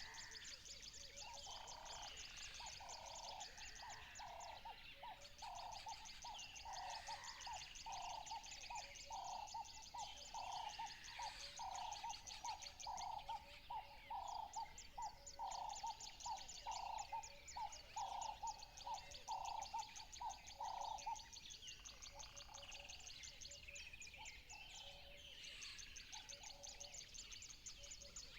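Several birds calling at once: scattered chirps and a fast, high, buzzy trill, over a low call repeated about once a second that stops a little past two-thirds of the way through.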